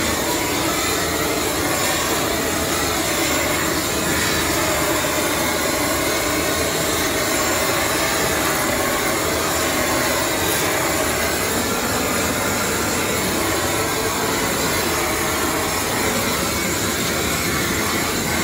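Hose-fed handheld gas torch running at full flame in a steady, loud rushing hiss as it sears tuna cheeks on a grill.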